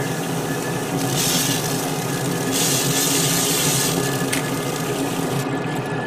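Aerosol spray can of white surfacer primer hissing for about three seconds and stopping sharply, over the steady running of a waterfall spray booth's water curtain and exhaust fans.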